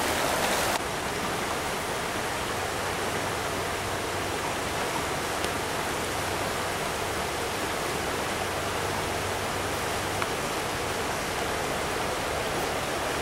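Steady rushing of a shallow, rocky stream running over stones and riffles. It is a little louder for the first second, then even.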